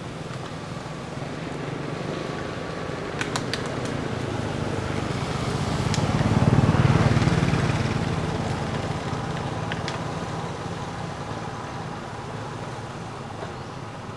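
A motor vehicle passing, its engine hum growing louder to a peak about halfway through and then fading away. A few short clicks are heard about three seconds in.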